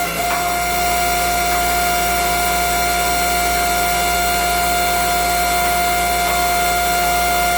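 Electric motor and pump of a hydraulic press running steadily, with a constant whine over a low hum.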